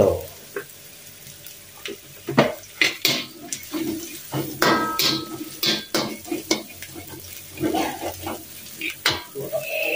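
Slotted spatula scraping and knocking against a wok in irregular strokes while dried anchovies, shallots and green chillies are stir-fried.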